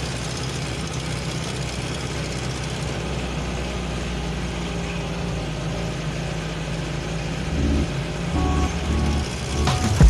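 Steady engine hum and tyre noise heard from inside the cab of a vehicle driving along a paved road.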